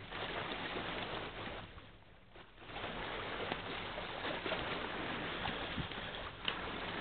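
Gusty wind noise on the microphone, with a short lull about two seconds in, over a faint low steady hum.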